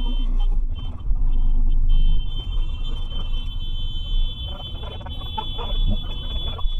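Low, steady rumble of a stationary car and surrounding traffic picked up by a dashcam microphone, with a steady high-pitched electronic tone over it and a few scattered clicks; it gets louder briefly between about one and two seconds in.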